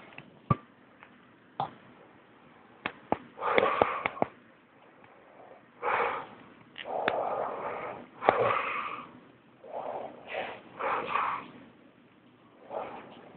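Snoring from a sleeper: irregular noisy breaths, some drawn out over a second or two. A few sharp clicks fall between the breaths, mostly in the first few seconds.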